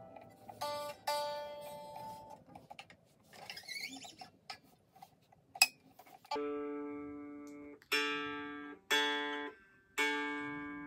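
Baritone ukulele being tuned up: a couple of plucked single notes, a few seconds of faint clicks and handling, then the same chord strummed four times, each left to ring and fade.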